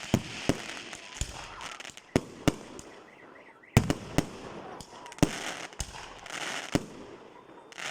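Aerial fireworks going off: a string of sharp bangs at irregular intervals with crackling between them, the loudest bang coming just before halfway through after a brief lull.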